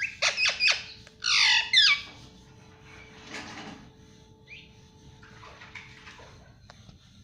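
Pet ringneck parrot squawking: a few short, sharp calls, then two loud, harsh squawks about a second in, followed by only faint sounds.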